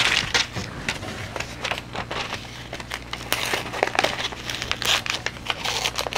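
Paper envelope being pulled open along its glued seams by hand: irregular crinkling and rustling of stiff paper with many short crackles as the glue lets go.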